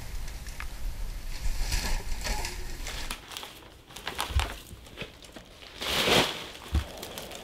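Plastic trash rustling and crinkling as gloved hands sort through a pile of bottles, bags and wrappers, with a louder crinkle about six seconds in and a couple of soft thumps.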